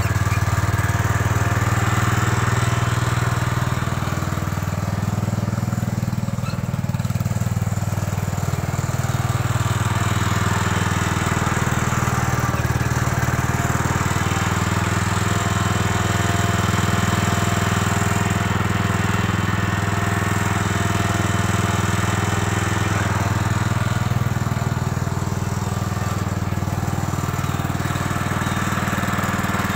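1968 Gravely Commercial 12 walk-behind tractor's Kohler engine running steadily while pushing snow with a front plow blade, its pitch shifting slightly a few times as the load changes.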